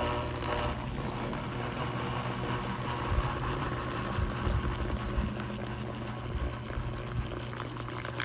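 Steady low electrical hum with faint fizzing and crackling from a powered cable TV converter circuit board shorting out in wet, salted soil.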